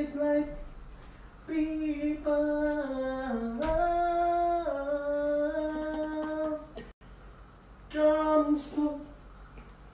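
A single voice humming and singing a tune with no accompaniment, holding long notes that slide between pitches. The voice breaks off about seven seconds in and resumes a second later.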